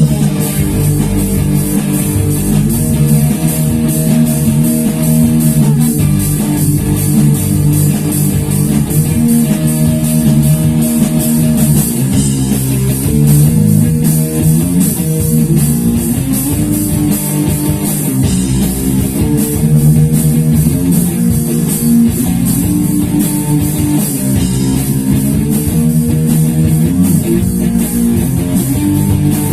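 Rock band playing an instrumental passage without vocals: guitar chords over bass guitar and a drum kit, with a steady even tick of cymbals on the beat.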